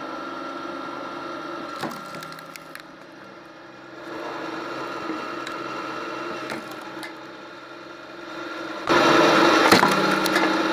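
Wood splitter running with a steady machine hum while wood cracks and splits, with a few sharp cracks. The sound gets louder near the end.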